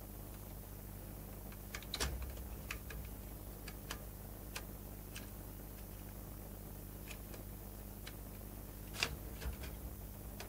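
Scattered small clicks and taps of hands fitting a circuit board and ribbon cables inside an open video recorder, with two louder knocks about two seconds and nine seconds in, over a steady low hum.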